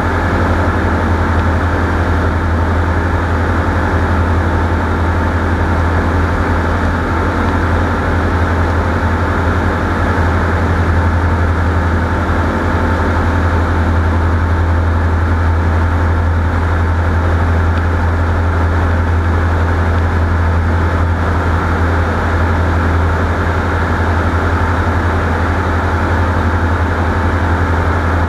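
Light aircraft engine and propeller running steadily at constant power: a loud, even drone with a strong low hum and no change in pitch or loudness.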